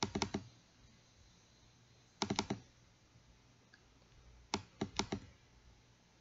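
Quick clicking at a computer, a mouse and keyboard, in short bursts of several clicks: one at the start, one about two seconds in, and a single click followed by another burst around five seconds in.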